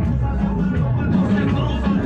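Background music playing continuously.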